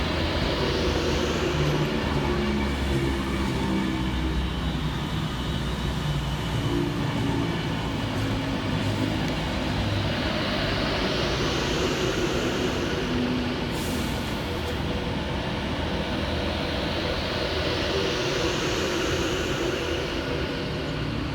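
Avanti West Coast Class 390 Pendolino electric train moving through the station: a steady rumble and electric hum, with a high hiss that swells and fades three times.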